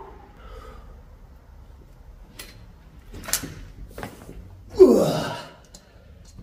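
A man's loud, strained grunting exhale with a falling pitch, the effort of pressing heavy dumbbells on an incline bench. It comes about five seconds in, after two sharp clicks.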